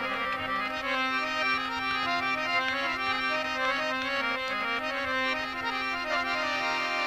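Harmonium playing a melody of short held notes over a steady drone note, as an instrumental passage in a Rajasthani folk song.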